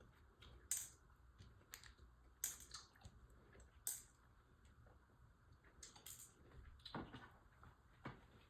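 Small parts of a model kit being handled and fitted: scattered sharp clicks and taps a second or so apart, with a couple of duller knocks near the end.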